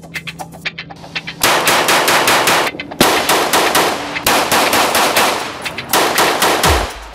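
Rapid bursts of gunfire from a pistol mounted in a Hera Arms Triarii carbine conversion chassis: four strings of very fast shots, each about a second long with short pauses between them, starting about a second and a half in.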